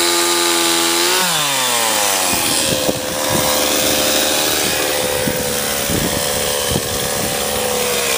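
Stihl 026 two-stroke chainsaw running at high revs in a cut through a tree limb. About a second in the throttle is released and the revs fall away to a steady idle, with a few short knocks.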